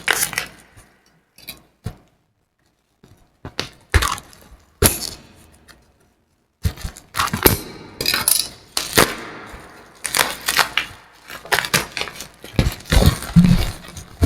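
Product packaging being handled and opened by hand: irregular crinkling, crackling and sharp clicks of plastic and cardboard. It is broken twice by a moment of dead silence.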